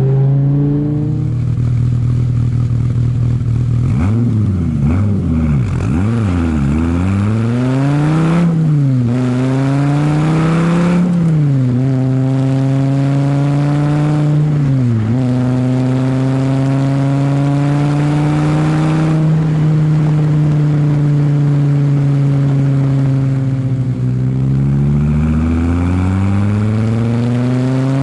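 2016 Dodge Viper ACR's 8.4-litre V10 with side-exhaust pipes, tuned to 765 PS, running under changing throttle. It gives several quick rev blips, then two brief drops in pitch that recover, holds a long steady drone, and rises again near the end.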